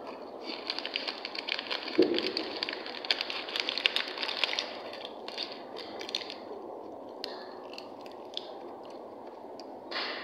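Plastic snack wrapper crinkling as it is handled: a dense crackle for the first few seconds, then scattered crinkles. There is a single thump about two seconds in.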